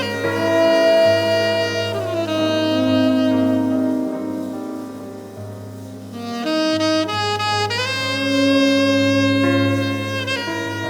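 Jazz ballad played by a small band: a saxophone holds slow, sustained melody notes, changing pitch every second or two, over a soft accompaniment with a steady low bass.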